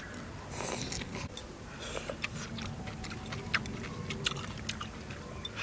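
Close-up chewing and mouth smacking of people eating pieces of beef intestine from a chili soup, heard as a scatter of short irregular clicks.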